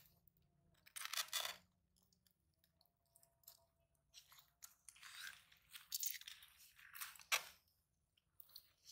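Sulcata tortoises biting into and chewing raw vegetables and watermelon: irregular bursts of wet crunching, each about a second long, with one sharper crack about seven seconds in.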